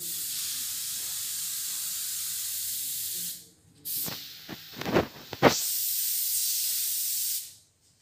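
Paint spray gun on an air hose hissing steadily as it sprays, cutting off a little after three seconds. About a second later come several short, loud bursts, then the steady hiss starts again and stops just before the end.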